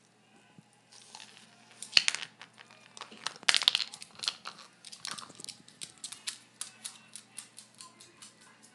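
A dog crunching and gnawing a hard dental chew: loud crunches about two seconds in, then steady chewing clicks at about three a second.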